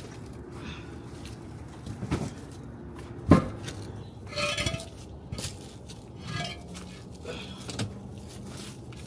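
Hollow concrete cinder blocks being picked up and set down, knocking and scraping against each other in a series of hard clunks; the loudest knock comes about three seconds in.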